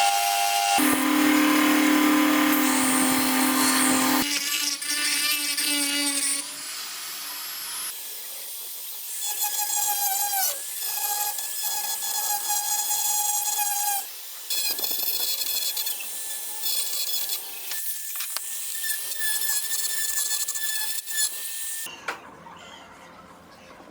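Power tools whining at a steady pitch as they work a steel knife blade, heard as a string of short edited clips. The pitch and tone jump to a new sound every few seconds.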